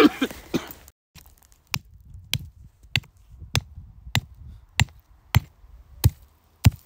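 Steady series of sharp knocks, about one every 0.6 s, from a metal tool striking the ground. The ground is being sounded for a hollow space beneath, and the strikes are taken to ring hollow.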